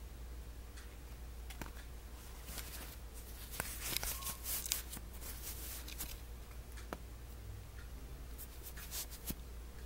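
Hands handling terry-cloth wristbands and their cardboard tag: scratchy rustling and a few sharp clicks, busiest from about two and a half to five seconds in and again near the end, over a low steady hum.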